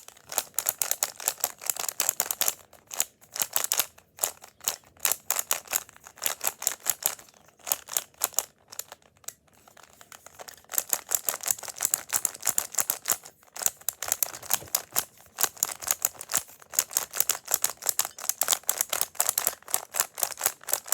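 A plastic twisty puzzle cube being turned rapidly by hand, its layers clicking and clacking many times a second, with brief pauses between bursts of turning.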